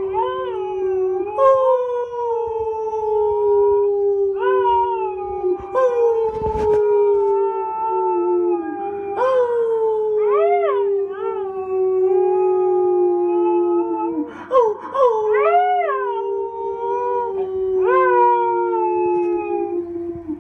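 Siberian husky howling: a string of long howls, each rising briefly and then sliding slowly down in pitch. Shorter arched 'woo' notes come around the middle and again about three quarters of the way through, and there is a brief thump about six seconds in.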